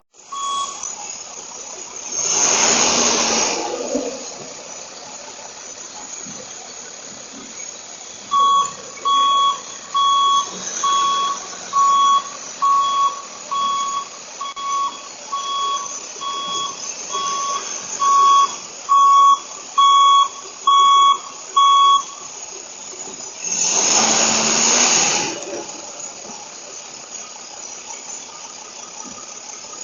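Electronic beeper sounding one steady tone over and over, a little under two beeps a second, for about fourteen seconds from about eight seconds in. Two louder rushes of noise come about two seconds in and again near the end.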